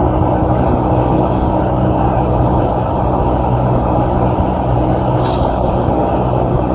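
A steady, loud low rumble with a constant hum, and a brief rustle of shaken cloth about five seconds in.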